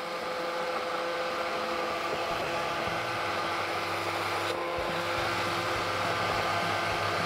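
Hand-held immersion blender running steadily with its shaft submerged in a pot of chunky fish and tomato soup, puréeing it smooth.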